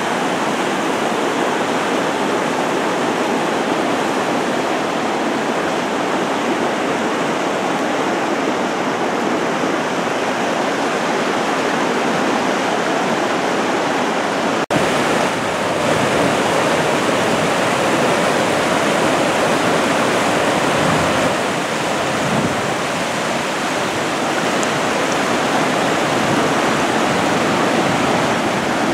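Steady loud rush of water from a waterfall and its fast-running rapids, with a momentary break about halfway through.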